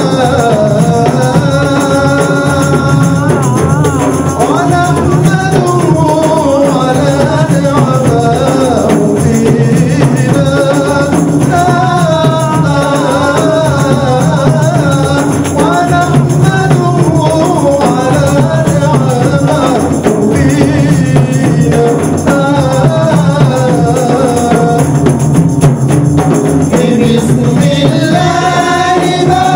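Men's voices singing a Comorian religious qasida into a microphone, accompanied by the steady beat of hand-held frame drums.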